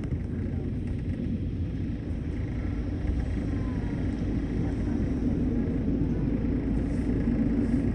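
Minivan driving slowly up a ferry's internal vehicle ramp, heard from inside the van: a steady low engine and road rumble.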